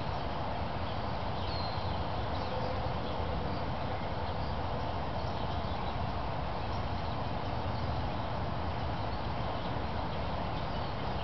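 Steady outdoor background noise, an even rumble and hiss that does not change, with a few faint high chirps scattered through it.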